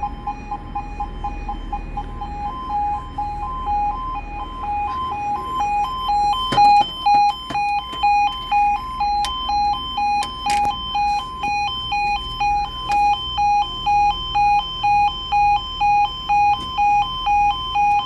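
UK level crossing warning alarm sounding. A steady electronic tone turns, after a couple of seconds, into a two-tone warble that switches between the two pitches about twice a second. A few sharp knocks come through partway in.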